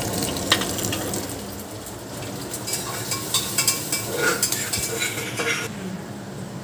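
Ginger, green chillies and bay leaf sizzling in hot ghee in a pressure cooker pan, with a spoon scraping and clicking against the metal for a few seconds in the middle. The sizzle dies down near the end.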